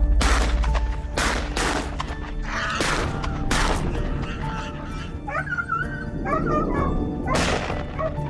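Dogs barking several times, with wavering yelps and whines in the middle, over background music.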